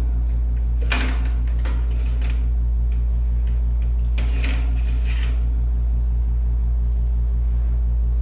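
A metal baking tray of cookies scrapes and clatters against the wire rack of an electric wall oven as it is slid out, in a few short bursts about one, two and four to five seconds in. Under this the oven hums steadily and low throughout.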